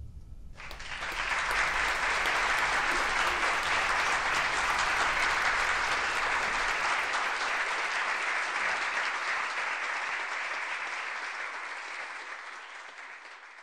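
Audience applauding, a steady wash of clapping that begins about half a second in and fades out near the end.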